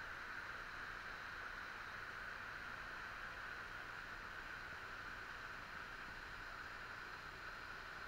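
Waterfall pouring down rock into a pool, a steady, even rush of water.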